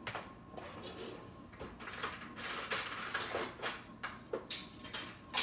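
Rummaging through a kitchen drawer of utensils for a measuring spoon: an irregular run of clicks, knocks and light rattles, with the sharpest knocks near the end.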